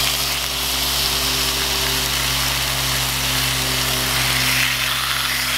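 Cod fillets sizzling in hot garlic olive oil in a cast-iron skillet: a steady, loud frying hiss that began as the fish went into the pan, with a steady low hum underneath.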